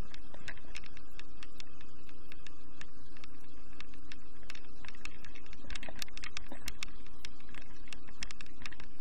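BaltMotors Standart R 15ME WR motorized towing dog running steadily under load as it tows up a snowy slope, with a dense run of sharp clicks and rattles over it, busiest about two-thirds of the way through.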